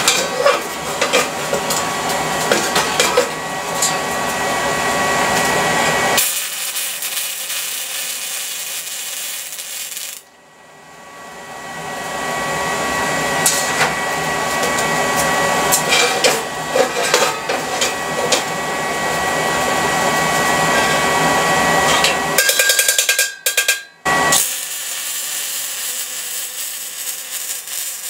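Electric welding arc crackling and sizzling as steel fittings are welded onto a steel air tank, with a faint steady whine under it. The arc cuts out and restarts several times.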